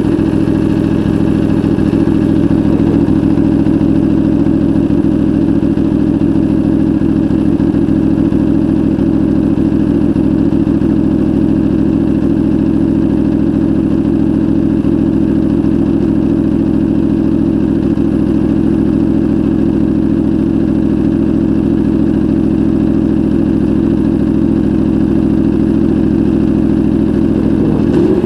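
Aprilia Tuono V4 motorcycle engine idling steadily in neutral through a Racefit aftermarket exhaust, recorded from a microphone on the bike.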